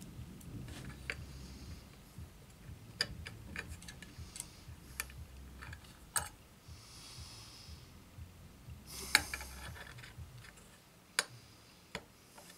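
Small brass parts handled on a stone work plate: scattered light clicks and taps as pieces are picked up and set down, with a short scraping rub about seven seconds in and the sharpest click about nine seconds in.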